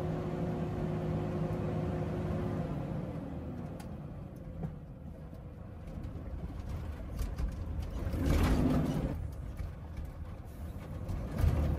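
Heavy truck's diesel engine running, heard inside the cab, its low drone easing off after a few seconds and building again near the end; the driver says the engine is misfiring and makes the truck jerk on the road. A louder burst of rushing noise comes about eight seconds in.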